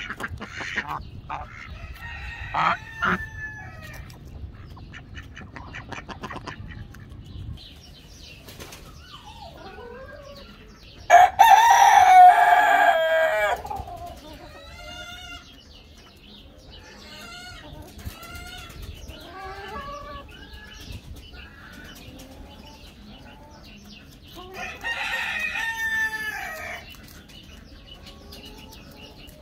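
Rooster crowing twice, once about eleven seconds in and again near the end, each crow lasting two to three seconds. Shorter calls from the rest of the flock come in between.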